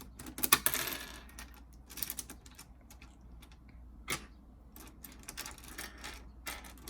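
Small plastic 5x5 Rubik's cube pieces clicking and clattering as they are handled and fitted into the partly assembled cube. A burst of clatter comes about half a second in, followed by scattered single clicks.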